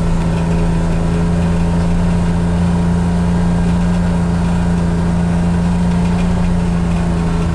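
John Deere XUV835M Gator utility vehicle's three-cylinder gasoline engine running at a steady, even speed.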